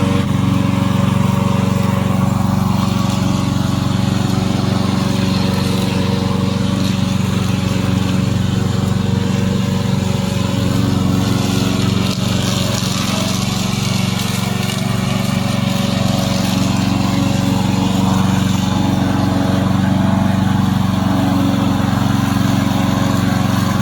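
Remote-controlled lawn mower's Loncin 9 hp petrol engine running steadily under mowing load, a loud, even drone.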